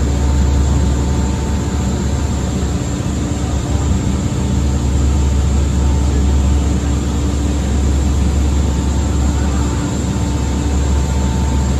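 High-speed passenger ferry's engines droning steadily with a low hum, under a constant rush of wind and water, heard from the open deck while the boat is under way.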